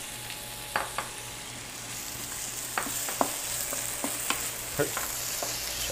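Sliced potato, carrot and ginger shreds sizzling in hot oil in a nonstick wok, stirred with a wooden spatula that knocks and scrapes against the pan in short irregular clicks over a steady hiss.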